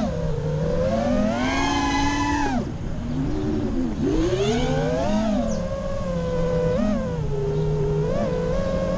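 FPV racing quadcopter's brushless motors (T-Motor 2305 2450 kV) and propellers whining in flight, the pitch swooping up and down with each throttle punch and chop. The biggest climb comes about a second in and drops sharply near the three-second mark, another rise follows around four to five seconds, then smaller quick blips.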